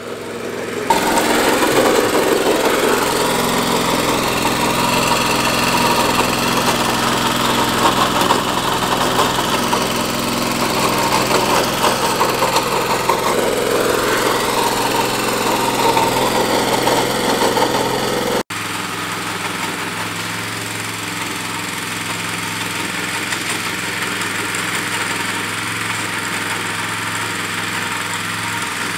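Honda rear-tine tiller's small gasoline engine running steadily under load as its tines churn through dry soil. About two-thirds of the way through the sound cuts abruptly to a quieter, steadier engine hum.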